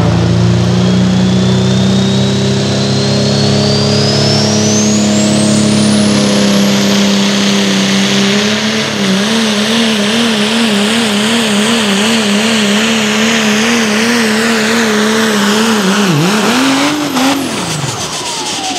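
Open four-wheel-drive pulling truck's engine at full throttle, hauling a weight-transfer sled, with a turbo whistle that climbs steeply over the first several seconds and then holds high. From about nine seconds in, the engine note wavers up and down about twice a second. Near the end the engine drops off and the whistle spins down as the pull ends.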